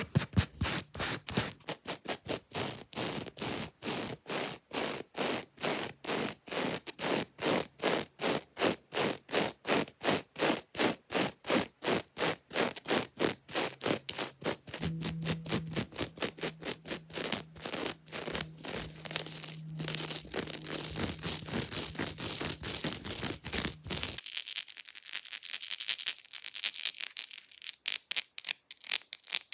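Fake fingernails scratching fast across a hard object in quick, even strokes, about four a second. Near the end the strokes turn lighter and thinner, as if on a different surface.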